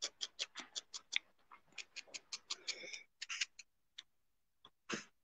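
Felting needle stabbing repeatedly into a wool ball: a quick, even run of soft ticks, about six a second, that breaks off after about three seconds into a few scattered stabs. The ball is being stabbed all around to firm it back into a round shape.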